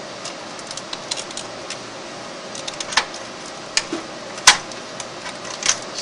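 Scattered small clicks and taps of cables and plastic parts being pressed into place inside an open rack server chassis, with one sharp, louder click about four and a half seconds in, over a steady room hum.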